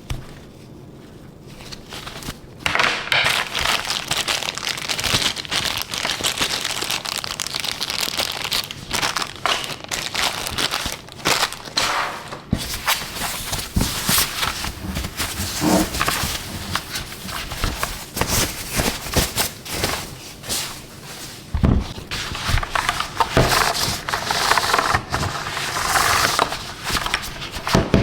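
Packaging being handled while unboxing a keyboard: plastic and wrapping crinkling and rustling, with small rubs and clicks, starting about two and a half seconds in.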